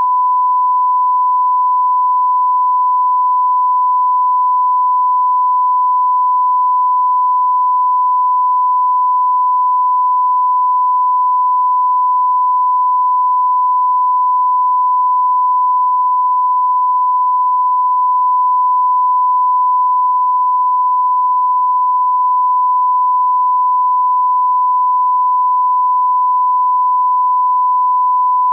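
A steady test tone at one fixed pitch: the 1 kHz line-up tone that goes with SMPTE colour bars.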